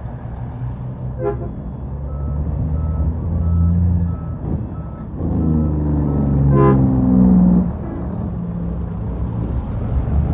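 Heavy truck's diesel engine running, with a reversing alarm beeping about twice a second from about two to five seconds in. The engine then revs up with rising pitch and drops back near eight seconds in.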